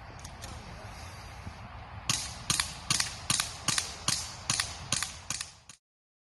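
Airsoft gun fired in quick semi-automatic shots, about ten sharp cracks at roughly two and a half to three a second, starting about two seconds in. Then the sound cuts off.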